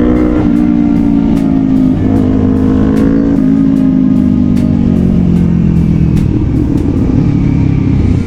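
Background music with a steady beat, over a motorcycle engine running and rising and falling in pitch.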